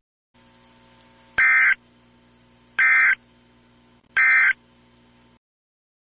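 Emergency Alert System SAME end-of-message data bursts: three short, identical, harsh digital warbles about a second and a half apart, marking the end of the alert.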